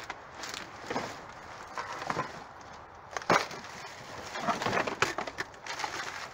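Cardboard boxes and plastic food packaging being lifted, shifted and rummaged through by gloved hands: irregular crinkles, scrapes and knocks, the sharpest knock about three seconds in and a busy run of crinkling a little later.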